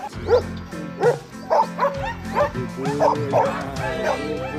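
A dog barking, a quick irregular string of short high barks, about two a second, over background music with steady held chords.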